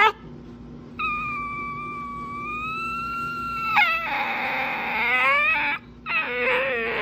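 Dog making drawn-out whining, howling vocalisations: a long, steady high whine starting about a second in, then a harsher, noisier call, then a wavering whine near the end.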